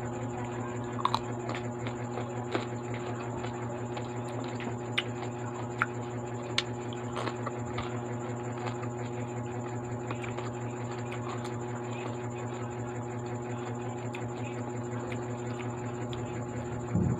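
Close-up eating sounds: french fries being chewed, with scattered small sharp mouth clicks and smacks. A steady low hum runs underneath.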